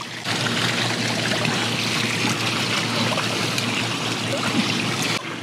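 Enhulk handheld cordless pool vacuum running in the water behind the pool steps: a steady rush of churning water with a low hum under it, starting and stopping abruptly.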